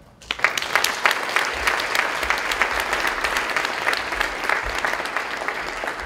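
Audience applauding: dense clapping that starts suddenly just after the chair's thanks and tapers off near the end.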